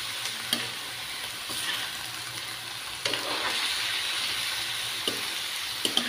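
Chopped cabbage and ground pork sizzling steadily in a hot wok while a spatula stirs and tosses it, with a few sharp knocks of the spatula against the pan.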